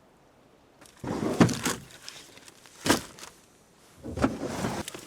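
Gear being handled and rummaged through, in two noisy stretches, with one sharp thunk a little before the middle.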